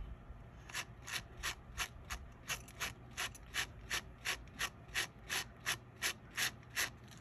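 Light, careful brush strokes through strands of angorita yarn on a crocheted figure, fluffing them out into fur. About three short strokes a second, evenly spaced, starting about a second in.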